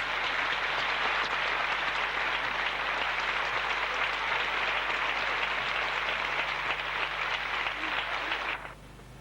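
Audience applauding in a dense, steady patter; the applause cuts off abruptly near the end.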